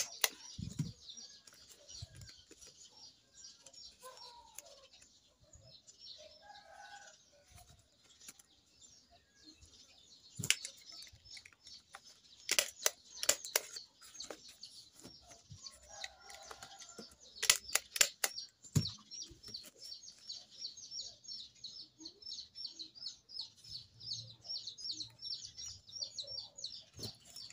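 A handheld stapler snapping staples through folded banana leaves: one click about ten seconds in, then two quick runs of three or four clicks, and a last click near the end. Fast, high, even chirping goes on in the background.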